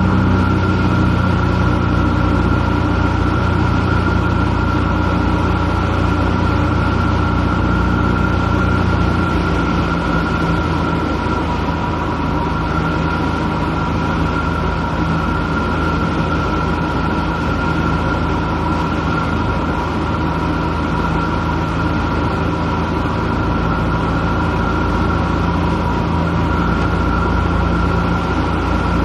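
Light single-engine airplane's piston engine and propeller droning steadily, heard inside the cabin. About nine seconds in, the engine note drops slightly and the sound gets a little quieter.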